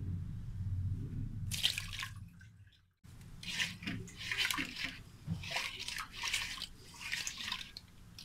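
A hand swishing water and spices around in an aluminium cooking pot, with repeated splashes about twice a second. There is a single splash about two seconds in, then a short break before the steady swishing.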